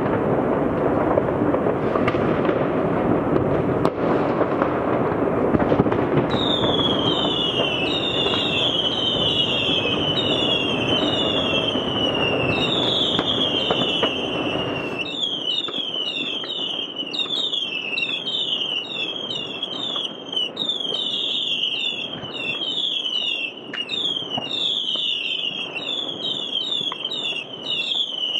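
Fireworks: a dense barrage of crackling and banging for about the first half, which drops away abruptly. Over it and after it, many high whistles from whistling fireworks, each falling in pitch and coming one or two a second, with scattered pops.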